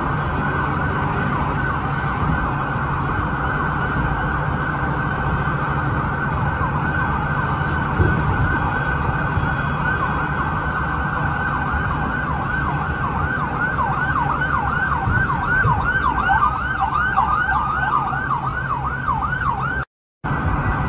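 Several emergency vehicle sirens sounding at once, their wails overlapping. In the second half one switches to a fast up-and-down yelp, about two to three sweeps a second, over a steady low rumble.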